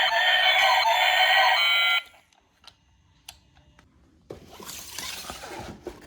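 Electronic toy sound effect of several steady tones, cutting off suddenly about two seconds in. A few faint clicks follow, then near the end a rustling noise of about a second and a half.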